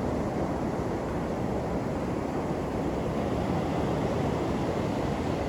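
Steady wind rumbling on the microphone over the wash of incoming surf on a beach.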